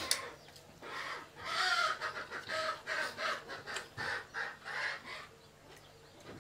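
Chicken clucking, a run of short repeated calls through the middle of the stretch, with a few light clicks.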